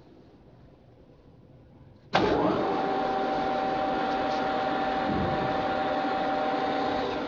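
Washino LE-19K engine lathe switched on about two seconds in: the spindle drive starts abruptly, rises briefly in pitch as it spins up, then runs steadily with a high whine from the motor and headstock gearing.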